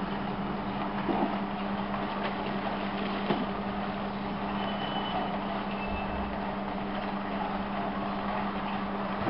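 Steady background drone: an even hiss with a constant low hum. Two faint clicks come about a second in and again after three seconds.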